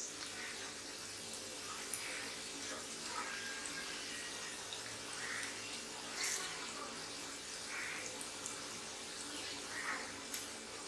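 Onion bhaji batter deep-frying in hot oil in a kadhai: a steady sizzle, with brief louder bursts every second or two as more handfuls of batter-coated onion are dropped into the oil.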